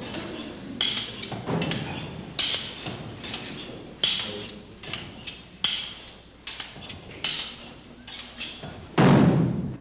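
A series of sharp, irregular knocks, roughly one or two a second, each with a short ring, then a louder, longer crash about nine seconds in.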